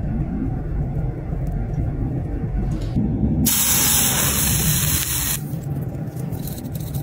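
Water hitting a freshly poured hot metal casting in a sand mould: a strong hiss of spray and steam that starts abruptly about three and a half seconds in and cuts off about two seconds later. A low steady rumble runs underneath.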